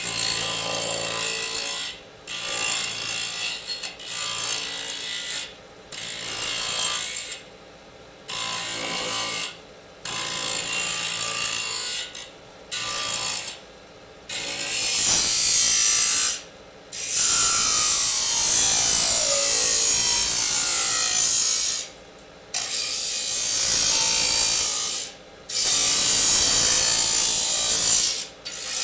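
Disk saw cutting aluminium in a run of repeated cuts: a dozen or so bursts of high, harsh cutting noise with short pauses between them, about a second or two each at first and longer, up to about five seconds, in the second half. In one of the longer cuts near the middle, a tone falls steadily in pitch.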